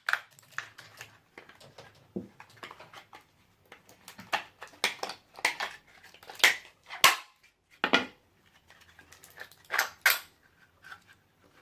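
Plastic laptop battery casing being pried apart and its cylindrical cells handled: irregular sharp clicks, cracks and short scrapes with brief pauses between them.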